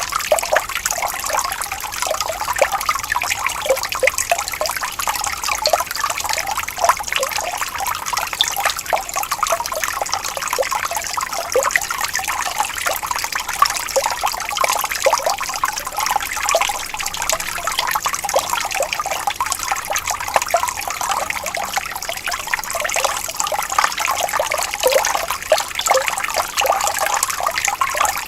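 Shallow stream trickling and babbling over stones: a steady splashing with many small gurgles and drips, without let-up.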